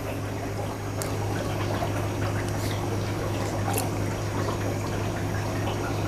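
Water in a shallow basin sloshing and trickling as hands move through it to catch a small fish, over a steady low hum.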